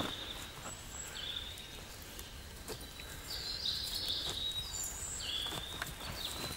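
Wild songbirds singing: short high phrases that repeat every second or two, some falling in pitch. Faint footsteps on a dirt path underneath.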